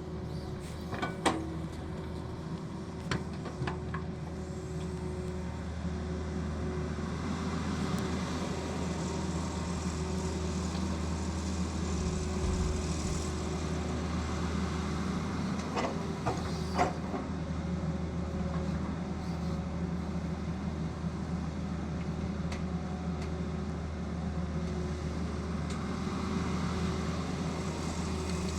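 Tata Hitachi excavator's diesel engine running steadily, with a few sharp knocks, the loudest about a second in and about 17 seconds in.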